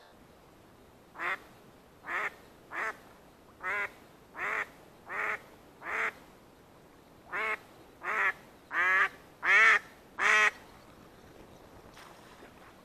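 A hen duck quacking: twelve loud quacks, a run of seven and then, after a short pause, a run of five that grows louder. This is the calling of a live decoy duck, used to bring in drakes.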